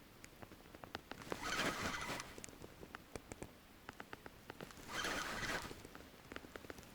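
Spinning reel being cranked in two short bursts of winding with light clicks and ticks between them, as a lure is retrieved.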